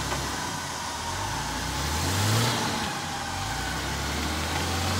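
1996 Lexus LX450's 4.5-litre straight-six engine running under load as the truck works through deep mud ruts, revving up about two seconds in, then settling and building again near the end.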